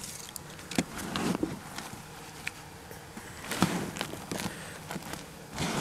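Gloved hands digging and rummaging through loose potting soil in a plastic wheelbarrow while sifting out Yukon Gold potatoes: an uneven gritty rustle with scattered crunches, the loudest about a second in and about three and a half seconds in.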